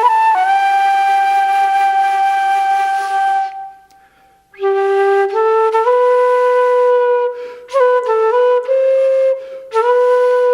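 Solo flute playing a slow melody of long held notes, in phrases broken by short breath pauses, one of them nearly silent about four seconds in.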